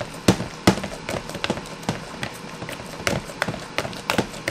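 Wire potato masher pounding mashed potatoes in a plastic bowl: a rapid, uneven run of sharp knocks, about two or three a second.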